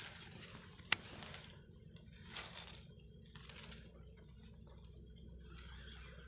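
Steady high-pitched drone of insects in the surrounding vegetation, with one sharp click about a second in.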